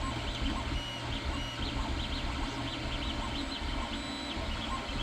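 Filament 3D printer running: its stepper motors sound in short, high chirps several times a second as the print head moves, over a steady low hum.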